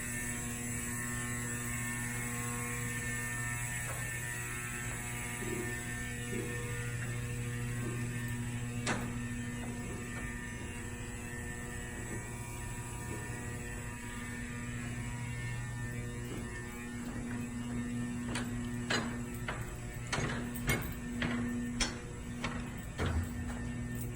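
Steady electrical hum with many even overtones. A single click comes about a third of the way in, and an irregular run of sharp clicks and knocks fills the last several seconds.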